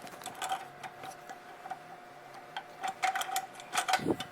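Scattered light metallic clicks and taps of machine parts being handled and worked loose during disassembly, sparse at first and coming thicker near the end, over a faint steady tone.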